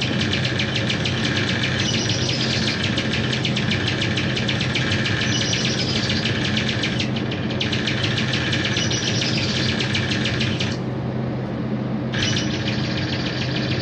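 Experimental electronic noise from homemade circuits: a dense, buzzing drone with steady low tones and a fast pulsing texture. A brighter chirping sound comes back about every three and a half seconds. The high part drops out for about a second near the end.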